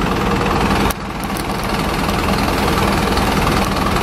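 Fire engine's diesel engine idling: a steady low rumble with a constant hum, dipping briefly about a second in.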